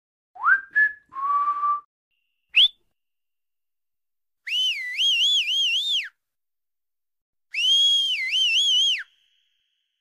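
A person whistling in separate whistles with silence between them. In the first two seconds there is a short upward whistle and then a lower held note. A quick upward flick comes near three seconds, followed by two warbling whistles of about a second and a half each, their pitch wobbling up and down.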